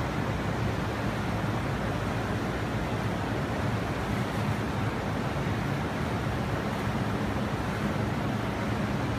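Rooftop air-conditioning unit running steadily: a constant fan rush with a low hum underneath.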